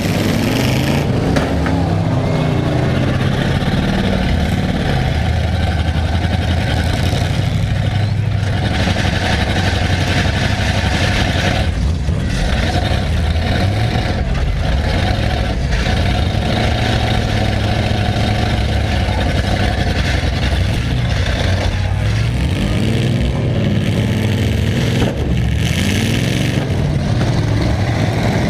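Several demolition derby car engines running and revving hard, their pitch rising and falling over and over with no let-up.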